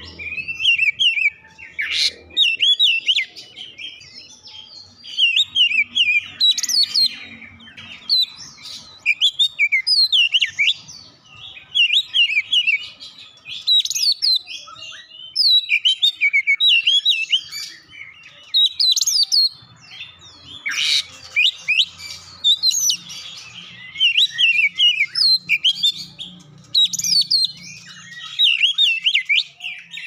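Oriental magpie-robin (kacer) singing: a rapid, varied run of bright whistled and chirping phrases, repeated in bursts with short pauses. Its song is filled in with mimicked gelatik batu (cinereous tit) calls. A single sharp click sounds about two-thirds of the way through.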